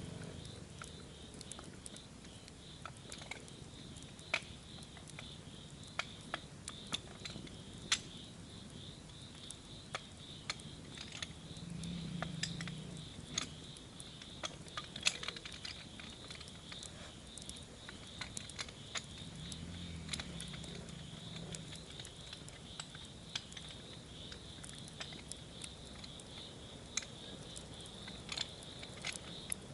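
Campfire crackling, with many irregular sharp pops, over a steady high buzz.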